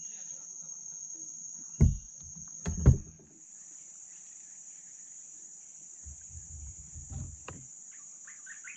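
A steady high-pitched drone of insects from the riverside jungle, shifting slightly higher a little after three seconds in. Two loud thumps come about two and three seconds in, with a few softer knocks later.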